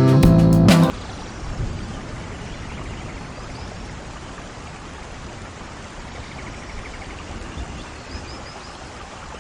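Acoustic guitar music that cuts off about a second in, then steady rainfall, an even hiss of falling rain.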